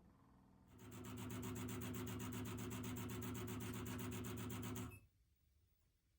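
Air conditioner outdoor unit's propeller fan running: steady airflow noise over a low hum, pulsing quickly and evenly, starting about a second in and cutting off abruptly near five seconds.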